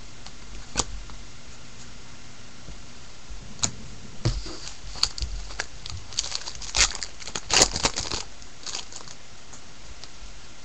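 Foil wrapper of a baseball card pack being torn open and crinkled: one sharp crackle under a second in, then a run of crackles and tearing lasting about five seconds, over a steady hiss.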